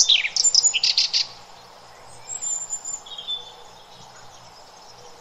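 Birds chirping: a quick run of high, falling chirps in the first second or so, then a few fainter calls, over a steady outdoor hiss.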